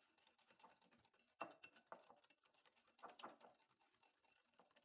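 Faint, irregular clicking and scraping of a utensil beating powdered sugar into yogurt and mayonnaise in a glass bowl, with a few louder knocks against the glass about one and a half and three seconds in.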